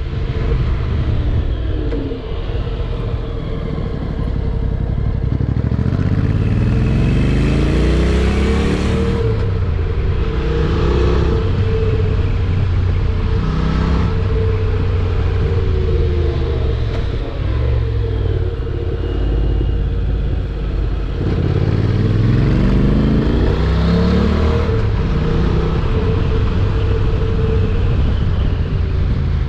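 Honda NC750X motorcycle's parallel-twin engine heard while riding, its pitch rising under acceleration about a quarter of the way in and again about three-quarters through, and easing off in between, over steady road and wind noise.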